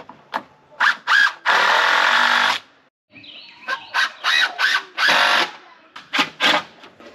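Power drill driving screws into wooden framing lumber: several quick trigger blips, the motor rising and falling in pitch, then a steady run of about a second as a screw goes in. The pattern comes twice.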